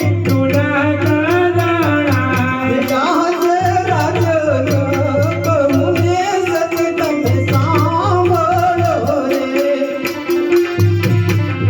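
Gujarati folk devotional music played live through a loudspeaker system: a wavering melody over a steady drone, with a steady beat of small rattling percussion and a deep drum that drops in and out in stretches.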